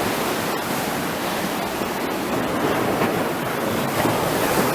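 Steady rush of sea surf washing on the beach.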